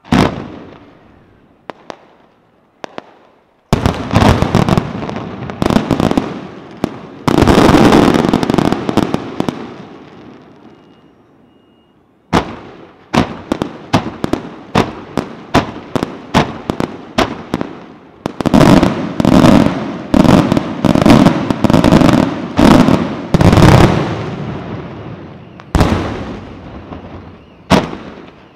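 Aerial fireworks shells bursting overhead. A few single bangs lead into dense, rolling volleys of overlapping bursts. Midway comes a quick string of sharp bangs, two or three a second, followed by another heavy volley and two last single reports.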